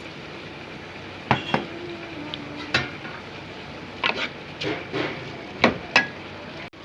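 A spoon stirring in a cooking pot, knocking and clinking against the pot several times, with a brief ringing tone after one knock.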